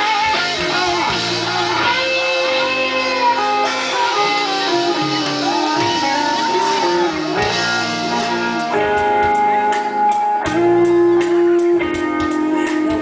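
Live rock band playing an instrumental passage: an electric guitar lead with held, bending notes over the band, joined by a steady drumbeat that comes in more strongly about nine seconds in.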